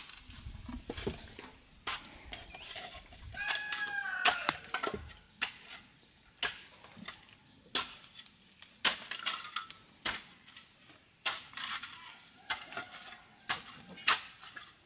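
A rooster crows once, about four seconds in. Around it comes a string of sharp knocks, roughly one a second, from the building work on the cabin frame.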